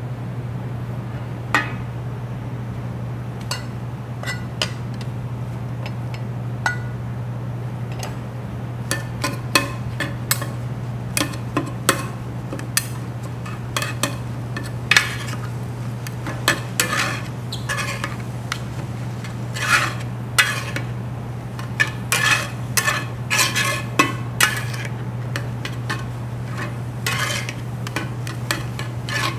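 Metal spatulas stirring and scraping dak-galbi (spicy stir-fried chicken) on a large griddle pan, with irregular clinks and scrapes that come thicker from about a third of the way in.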